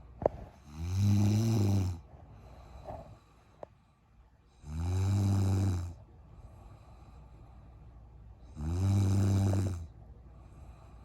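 A woman snoring in her sleep: three loud, low-pitched snores on the in-breath, about four seconds apart, each lasting a little over a second, with quieter breathing between them. A sharp click comes just before the first snore.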